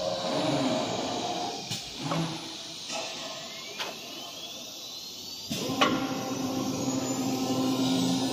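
Acctek 1325 ATC CNC router changing tools: the machine hums steadily, broken by several sharp mechanical clicks and knocks, the loudest a little past the middle. A thin whine rises steadily in pitch through the second half as the spindle spins up.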